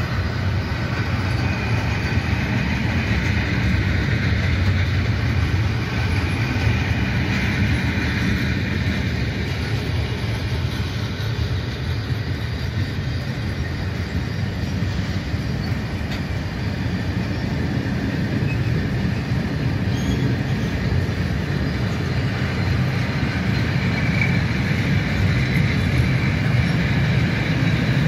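Freight train's covered wagons rolling past at close range: a steady, loud rumble and rattle of steel wheels on the rails, with a thin high wheel squeal coming and going.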